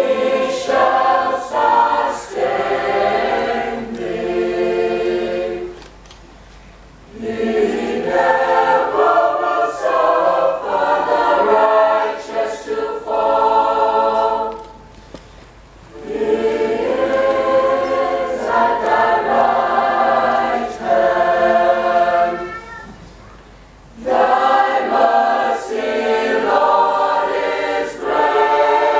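Mixed youth choir of girls and boys singing together, in four phrases with brief breaks between them.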